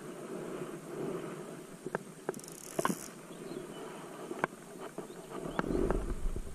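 Water splashing and lapping around a small outrigger boat as a man swims beside it, with scattered light clicks and knocks. A short hiss comes about two and a half seconds in, and a low rumble near the end.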